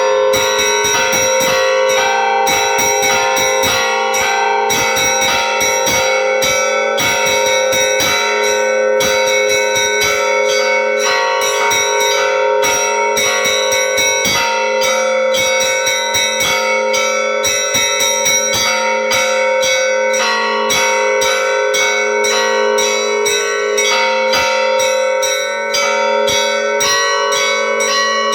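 Church bells ringing a peal: many bells struck in quick succession, several strikes a second, their tones overlapping and ringing on steadily.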